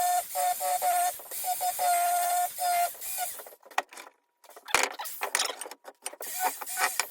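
A small power tool's motor whining in short on-off pulses for about three seconds. Then a moment of quiet, followed by scratchy rubbing with light clicks.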